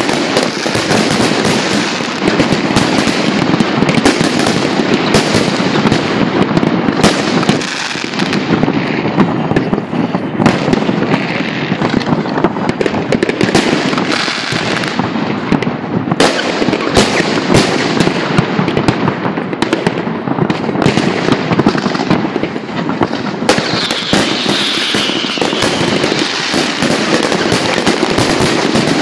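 A large fireworks display: a dense, unbroken barrage of shell bursts, bangs and crackling, many explosions overlapping.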